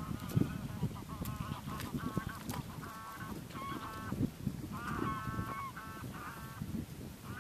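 Geese honking: many short, repeated calls in quick runs, over a low irregular rumble.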